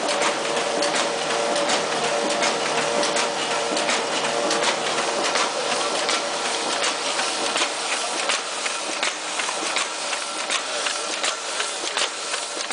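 Ryobi 3302HA two-colour sheetfed offset printing press running: a steady mechanical hum with a fast, even clatter of ticks. The hum fades about halfway through while the ticking carries on.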